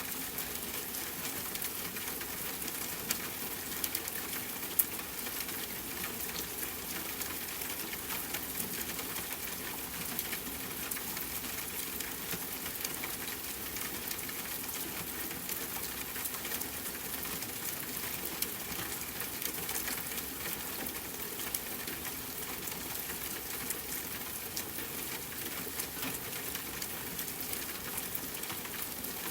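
Steady rainfall mixed with a crackling fireplace fire, with continuous small crackles and a couple of louder pops about three and five seconds in.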